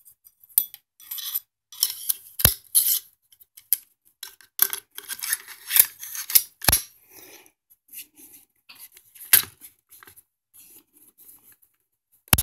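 AR-15 bolt carrier group, freshly lubricated, being slid into the upper receiver and worked by hand, and the upper being closed onto the lower: a run of metal clicks and scraping, with sharp clacks about two and a half seconds in, again just before seven seconds, and at the end.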